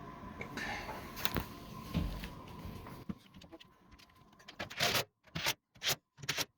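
Handling noise while a washer's back panel is refitted: scraping and light knocks. About five seconds in come several short, loud scrapes or clatters, with abrupt dead silences between them.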